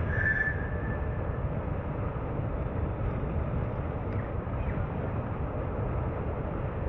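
A car driving in city traffic: steady road and engine rumble, with a horn sounding once for about a second and a half at the start.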